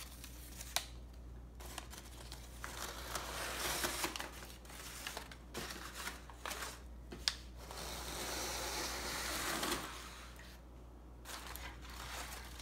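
Crumpled newspaper packing rustling and crinkling as it is pulled by hand out of a cardboard shipping box, with a few sharp crackles.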